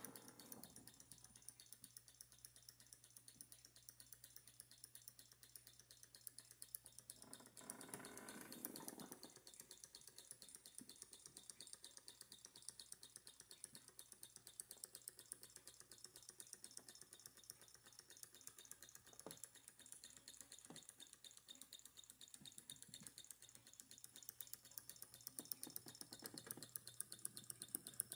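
Small Stirling hot-air beam engine running, its moving parts and belt drive making a faint, rapid, regular ticking.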